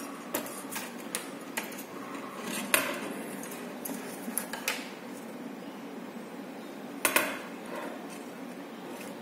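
A metal vernier caliper clinking against the coils of a metal spiral spring as its small inside-measuring jaws are worked into the spring: a scatter of light metallic clicks, the loudest about three seconds in and again about seven seconds in.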